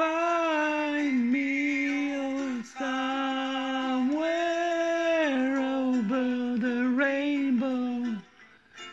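A man singing long held notes, phrase after phrase with short breaths between, stopping shortly before the end.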